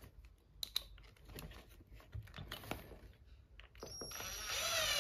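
Small clicks and knocks of screws and a bracket being handled, then near the end an electric screwdriver motor starts up and whines steadily, its pitch slowly falling as it drives a screw into a wooden board.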